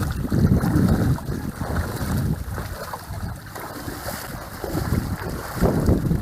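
Wind buffeting the microphone outdoors: uneven low rumbling gusts over a steady rushing hiss.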